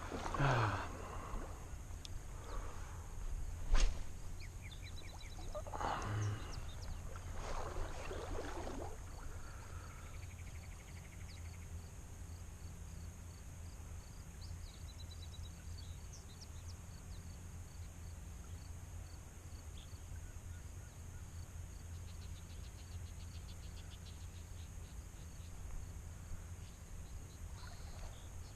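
Outdoor river ambience: a steady low rumble with small birds chirping and trilling. A few louder rustling swishes come in the first nine seconds, with one sharp click about four seconds in.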